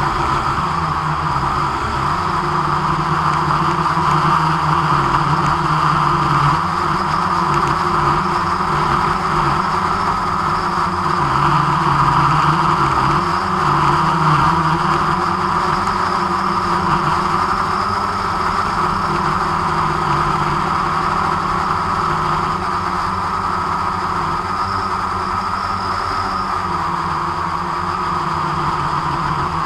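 Drone's propellers and motors humming steadily in flight, picked up by the drone's own onboard camera microphone.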